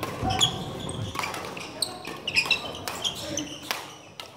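Badminton rally: rackets striking the shuttlecock in a quick series of sharp hits, with sports shoes squeaking on the wooden court floor.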